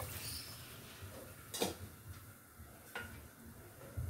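Two light knocks of metal kitchen utensils against cookware, about a second and a half in and again near three seconds, against quiet kitchen background.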